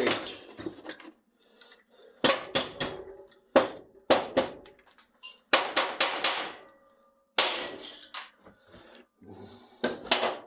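Metal parts clanking and knocking as they are dug out and shifted about: a string of irregular knocks in short clusters, some ringing briefly.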